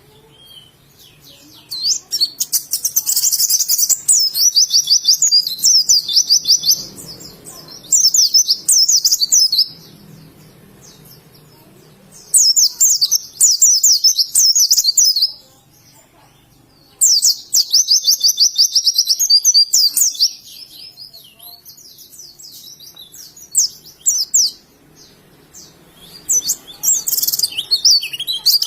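A white-eye (pleci) singing: rapid runs of high, thin chirping notes in bursts of two to four seconds, about five song bursts with short pauses between them.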